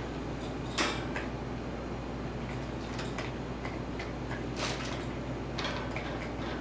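Tibetan Terrier puppy moving about in a wire pen: scattered light clicks, rattles and rustles, the clearest about a second in and again near the end, over a steady low hum.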